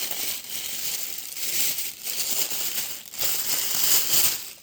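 Packaging crinkling and rustling as a boxed radio is unwrapped and pulled out of its box, a continuous crackle that swells and fades unevenly.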